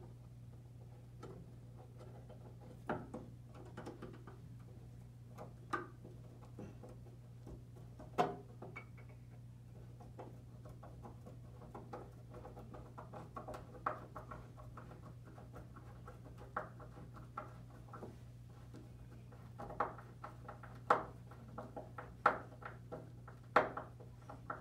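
Slotted solid-brass screws being turned by hand with a flat-blade screwdriver to fix a twist door bell to a door: irregular scrapes and clicks of the blade in the slots and small metal-on-metal knocks, sharper and louder near the end. A steady low hum runs underneath.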